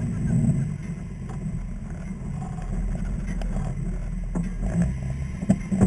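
Rock crawler's engine running at low revs as it crawls slowly, a steady low rumble, with a few sharp knocks scattered through, the loudest near the end.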